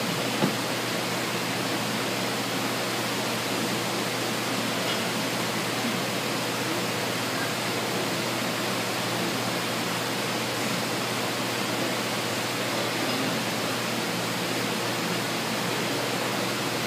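Steady, even hiss with nothing else standing out, and a single short click about half a second in.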